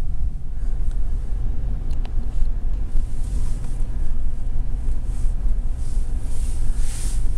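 Low, steady rumble of a car heard from inside its cabin, engine running.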